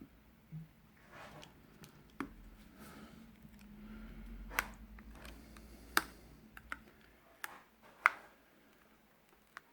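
Small sharp clicks and taps, irregular and about seven in all, over soft rustling, as a Samsung Galaxy S9 Plus and its new back glass are handled and pressed into place. The loudest clicks come about six and eight seconds in.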